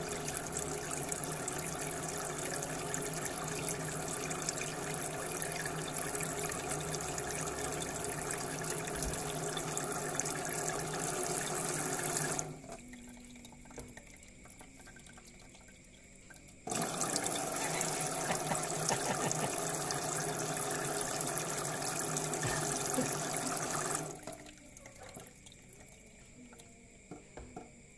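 Kitchen tap running into a stainless steel sink and plastic tub, a steady splashing hiss. It cuts off about twelve seconds in, comes back sharply about four seconds later, and cuts off again near the end.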